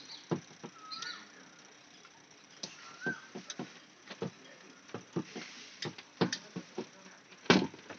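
Irregular clicks and knocks of hand work on a washing machine's timer and its parts, with a louder knock near the end. Two short chirps sound about one and three seconds in.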